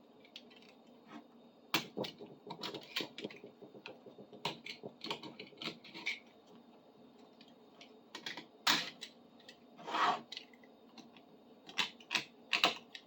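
Dried glue being scraped and chipped off a metal bar clamp by hand: irregular clicks and taps, with a couple of longer scrapes about nine and ten seconds in.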